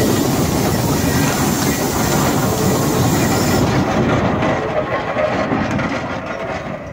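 Peerless steam traction engine running, with loud steam hiss over a fast mechanical clatter. The sharpest part of the hiss cuts off suddenly a little past halfway, and the sound dies down near the end.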